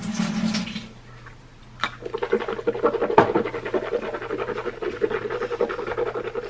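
A person rinsing with salt water for a mouth sore: a short swish in the mouth, then from about two seconds in a gargle, a steady hum broken into fast bubbling flutter, held for several seconds.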